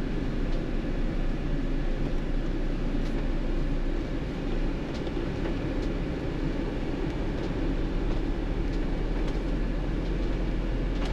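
Steady low engine and road noise inside a motorhome's cab as it rolls slowly in a queue, with a few faint ticks.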